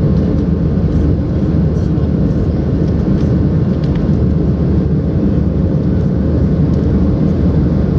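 Steady low roar of a Boeing 737-700's CFM56-7B jet engines and airflow as heard inside the cabin over the wing during the climb after departure.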